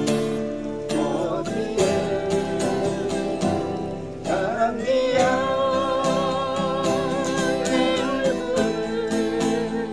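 Acoustic guitar played with a voice singing over it; about five seconds in the voice holds a long note with a slow waver.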